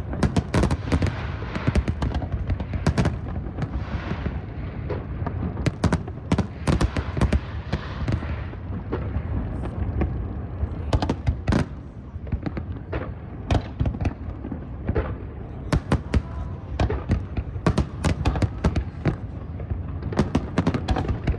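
A big fireworks display going off: a dense run of sharp cracks and booms from bursting shells, several a second, over a steady low rumble.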